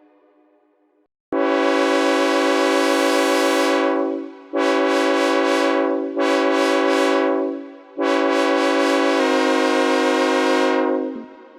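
Synthesized imitation of a raised-letter Nathan K5HL five-chime locomotive air horn. It sounds four blasts: a long one starting a little over a second in, two shorter ones, then a final long blast whose chord shifts partway through.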